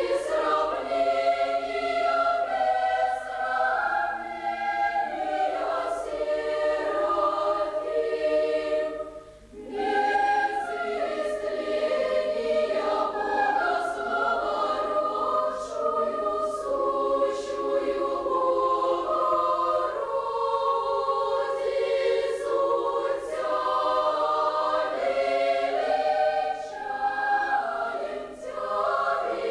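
Children's choir singing, holding long sung notes, with a brief pause about nine seconds in before the next phrase begins.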